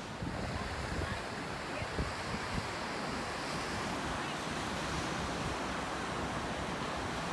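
Ocean surf washing on the beach in strong wind, with gusts buffeting the microphone.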